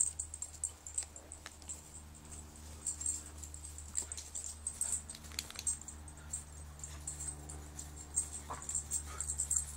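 An American Staffordshire terrier and a puppy play-wrestling, with scuffling and small knocks throughout and a couple of short whines near the end, over a steady low hum.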